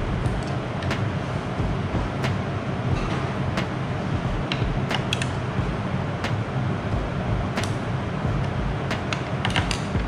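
A hex key unscrewing the bolts of carbon bottle cages on a bicycle frame: irregular small clicks, taps and creaks of the tool and cages being handled, more of them near the end. A steady low hum runs underneath.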